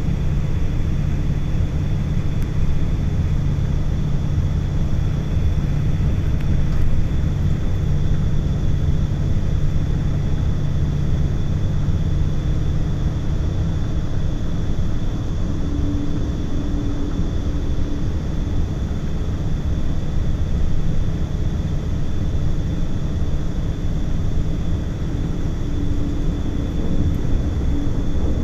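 A motor running steadily: a loud, even low rumble with a hum whose pitch shifts upward about halfway through.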